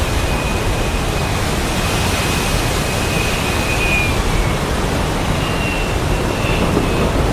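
Heavy rain and strong wind in a steady, dense wash of noise with a deep low rumble underneath. A faint high whistle comes and goes above it, gliding slightly around the middle.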